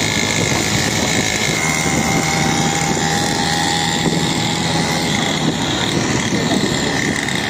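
Steady engine noise of motorbikes riding along a road, including a 49cc mini petrol dirt bike, with wind rushing over the microphone.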